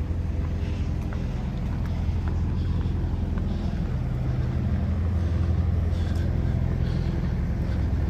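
Lorry engine running with a steady low drone.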